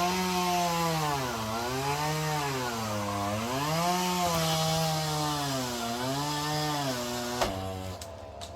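Two-stroke chainsaw cutting through a tree limb. Its engine note rises and sags about five times as the chain bites into the wood and recovers. Near the end there is a sharp knock, and then the saw runs on lower and steadier.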